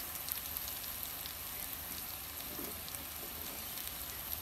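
Batter-coated chicken pieces frying in hot oil: a steady sizzling hiss with faint small pops.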